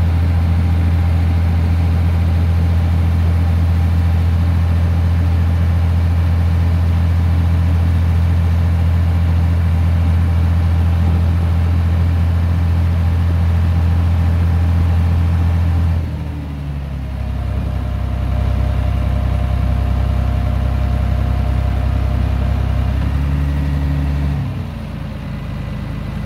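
John Deere 3130 tractor's diesel engine running steadily while the tractor is driven, heard from the open, cabless driver's seat. About sixteen seconds in the engine note drops; near the end it rises briefly, then settles lower.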